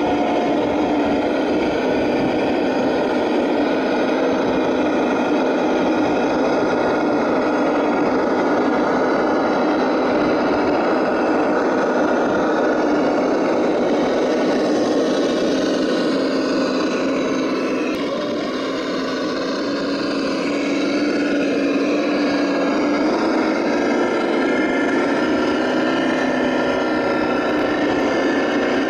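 Radio-controlled scale Land Rover Defender crawler driving, its engine sound a steady drone. The pitch shifts and the level dips slightly about two-thirds of the way through.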